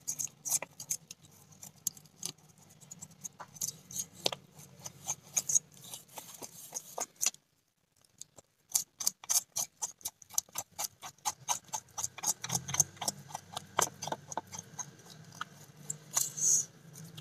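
Small snakehead fish being scaled on the steel blade of a boti: quick repeated scraping strokes, several a second, with a break of about a second midway.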